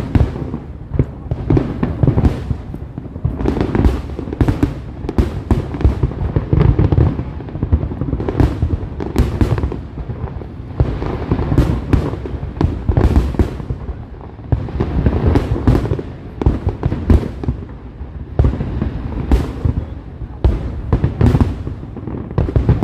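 Fireworks display going off in a dense barrage: several bangs a second, one after another without a break, over a low rumble.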